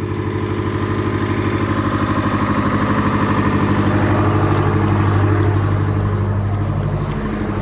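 Tractor engine running steadily at a low, even speed with a rapid pulsing beat, growing slightly louder and dipping briefly near the end.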